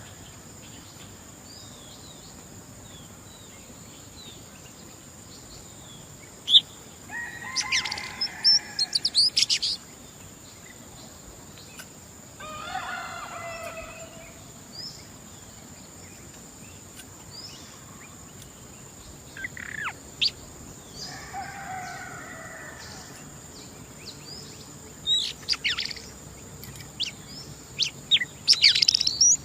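Female Oriental magpie-robin singing in short bursts of sweeping whistled and chattering phrases, with pauses of a few seconds between bursts.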